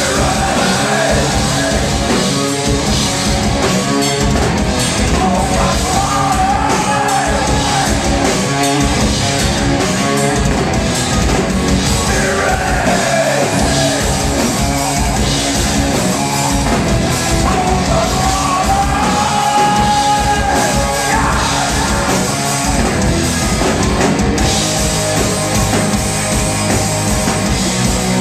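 Live rock band playing: a lead singer's voice over electric guitar and a drum kit, loud and continuous.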